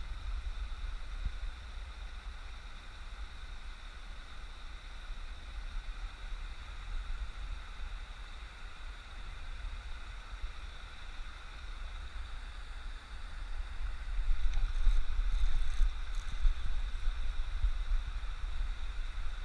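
Wind buffeting the camera microphone: an uneven low rumble over a faint steady hiss, louder for a few seconds near the end, with a few faint clicks in that stretch.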